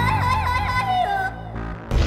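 Background music with a rapid warbling cartoon sound effect over it, its pitch bobbing up and down about five times a second; the warble stops about a second and a half in.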